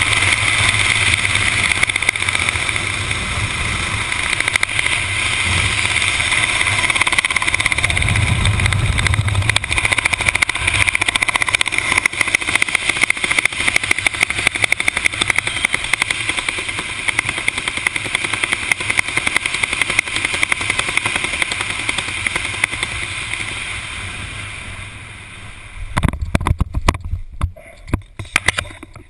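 Steady wind rushing over a helmet-mounted action camera's microphone during a parachute descent, easing off towards the end. About 26 seconds in it gives way to irregular knocks and rustles as the canopy comes down close to the ground.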